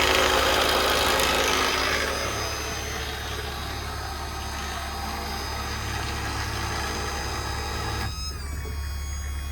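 Ram 5500's Cummins diesel idling steadily, with a louder whirring machine noise over the first two seconds that eases off, and a shift in tone with falling pitches about eight seconds in.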